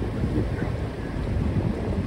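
A river cruise boat's engine running with a steady low rumble, mixed with wind buffeting the microphone.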